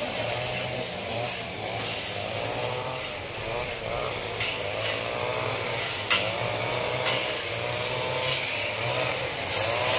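Small two-stroke engine of a handheld cutting tool running, its pitch rising and falling as it is throttled while cutting brush. A few sharp clicks stand out in the middle stretch.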